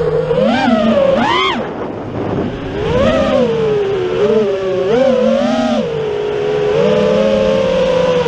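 FPV quadcopter's brushless motors whining, the pitch swinging up and down with the throttle: quick sharp climbs about a second in, then steadier near the end.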